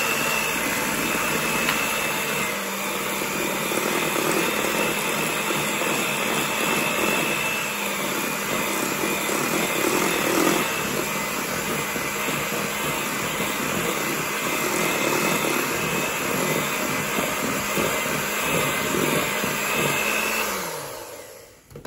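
Electric hand mixer running steadily with a constant whine, its beaters churning a runny egg-yolk batter in a stainless steel bowl. It is switched off near the end and the motor winds down with a falling pitch.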